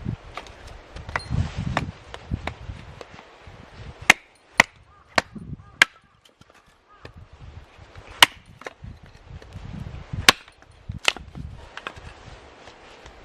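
Firewood being chopped: sharp wooden strikes, four in quick succession about half a second apart midway, then three more spaced out near the end, with rustling and handling between them.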